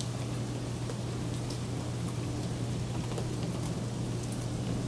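Rain falling steadily during a thunderstorm, with scattered drops ticking sharply, over a steady low hum.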